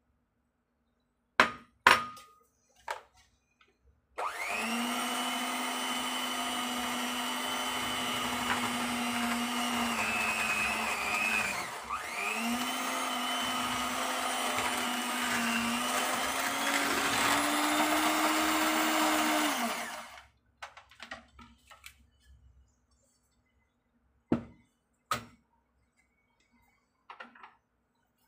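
Electric hand mixer running with its beaters in egg-yolk cake batter for about sixteen seconds; its pitch dips briefly about halfway, then rises near the end before it shuts off. A few short knocks and clinks of utensils come before and after it.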